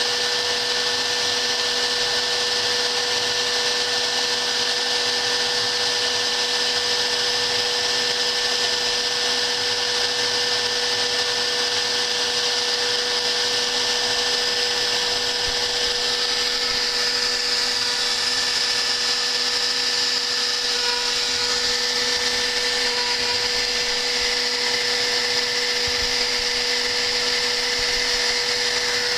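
CNC router spindle running at a steady high-speed whine while machining, with a constant hiss of cutting; the hiss changes slightly about halfway through.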